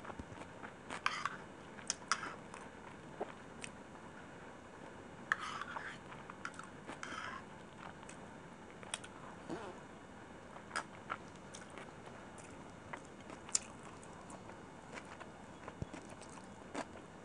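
Close-miked chewing of a mouthful of chicken biryani: wet, irregular mouth clicks and smacks, with a few denser bursts of chewing sound about a second in and again around five to seven seconds in.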